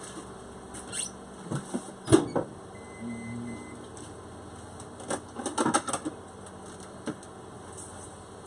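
Kitchen clatter from a plate being taken out of an overhead cabinet: a sharp knock about two seconds in, then a quick run of clinks and clicks around the middle.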